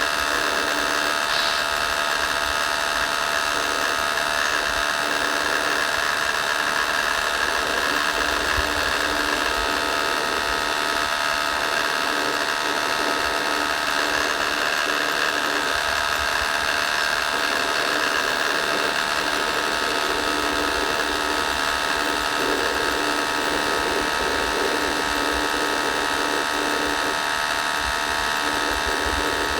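Steady mechanical whine of radio-controlled scale construction machines, their electric motors and gearing running, heard as a blend of several steady tones without a break.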